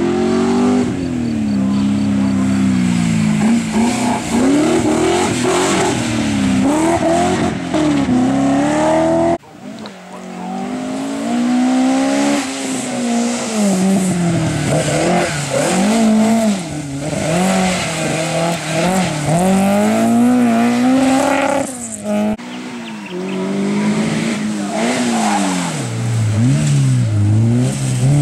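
Racing car engines revving hard through a cone slalom, their pitch climbing and dropping over and over with each run-up, gear change and lift. The sound breaks off twice, about nine seconds in and again about twenty-two seconds in, as a different car takes over.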